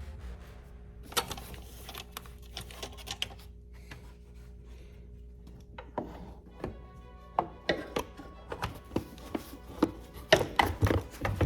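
Irregular clicks, knocks and rubbing of hand work on parts in a car's engine bay as a pipe is being removed, sparse at first and busier from about halfway on. Faint background music runs underneath.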